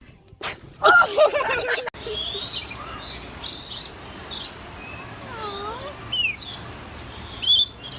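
Small birds chirping repeatedly, with high short chirps and quick falling notes. About a second in, a short wavering, moan-like call is heard.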